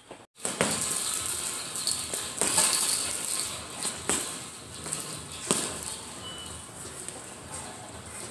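Gloved punches landing on a chain-hung heavy bag, the chains jingling and rattling. Sharp hits come at uneven gaps of about one and a half seconds, starting about half a second in.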